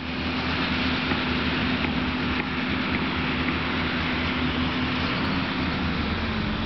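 Engine running steadily: an even drone with a low hum that does not change.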